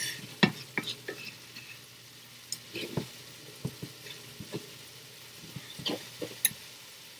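Spatula scraping and tapping against a cast iron skillet at an irregular pace while it breaks up and stirs browning ground turkey, over a faint steady sizzle of the frying meat.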